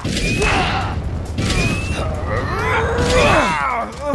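Mechanical whirring and clunking sound effects for a robotic armour suit, surging roughly once a second, mixed with gliding groan-like vocal sounds.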